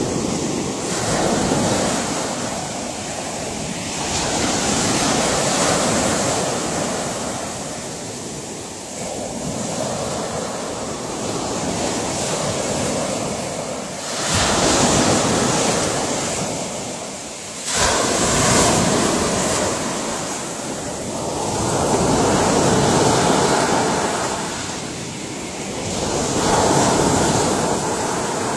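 Ocean waves breaking: a continuous surf wash rising and falling every few seconds, with two sharper crashes about halfway through.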